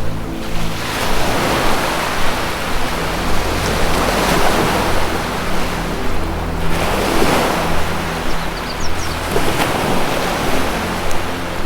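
Ocean surf washing in slow, repeated surges over a soft, steady low music drone. A few short, high bird chirps come in briefly about two-thirds of the way through.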